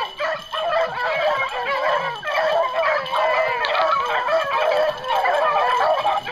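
A pack of beagles baying in chorus as they run a rabbit's track, many voices overlapping without a break.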